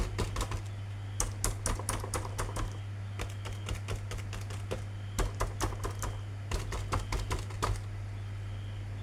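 Quick irregular clicks and taps of hard plastic being handled, as action-figure packaging is opened, over a steady low hum.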